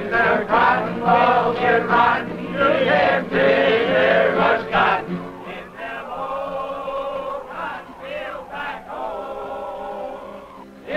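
Men singing together in a chant-like song, with an acoustic guitar accompanying. Softer from about halfway through.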